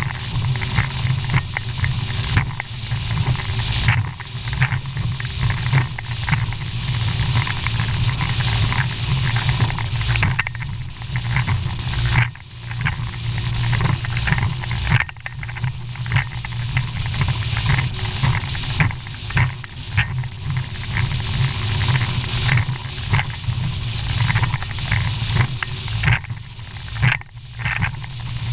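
A bass boat's Mercury outboard running at speed through rough water: a steady low engine drone under rushing water and wind noise, broken every second or so by sudden thuds and splashes as the hull slams into the waves.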